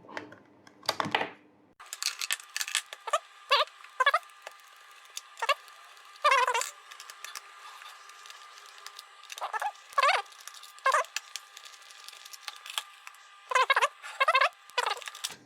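Plastic parts of an RC toy car being handled and pried apart: a scattered series of short clicks and squeaky creaks, over a faint steady hum.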